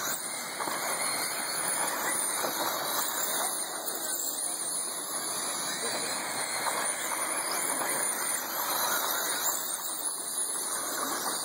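Electric RC race cars' motors whining high and wavering as the cars race, over a steady hiss.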